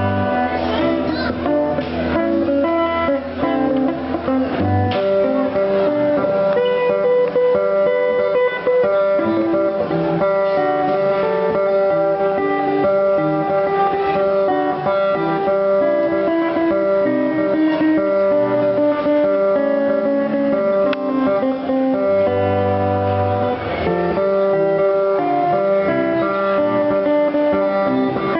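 Guitar played with plucked notes: a continuous melodic instrumental with ringing sustained notes and a few deep bass notes.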